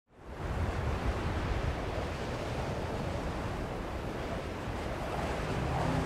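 Winter wind blowing through the trees as a steady rush, with a low rumble of wind on the microphone; it fades in at the very start.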